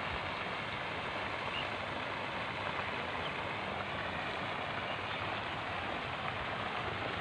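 A lake fountain's spray splashing steadily into the water, an even rushing hiss that does not change.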